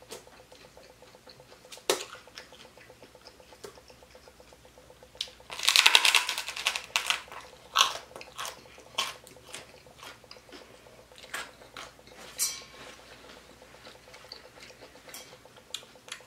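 Crisp fried pork skin (chicharrón) crunching in the mouth. A loud, dense crackling bite comes about five seconds in, followed by scattered crunches of chewing.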